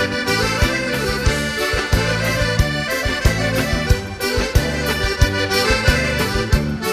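Instrumental break of a gaúcho dance tune, an accordion (gaita) playing the lead over a bass line and a steady, even beat.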